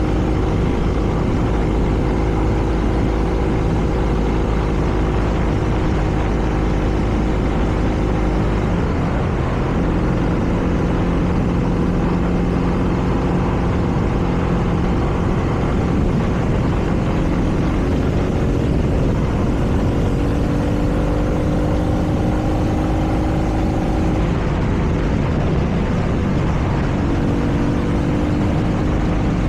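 BMW R nineT's air/oil-cooled boxer twin running under way at a steady pitch, stepping to new pitches a few times, near 9 s, about 24 s in and again near 27 s. Wind rush runs under the engine note.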